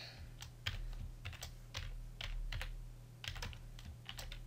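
Typing on a computer keyboard: an uneven run of key clicks as a word is typed, over a faint low hum.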